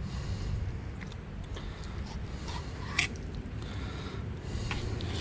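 Fillet knife slicing and scraping meat off a southern stingray wing on a cutting board, with a sharp click about three seconds in.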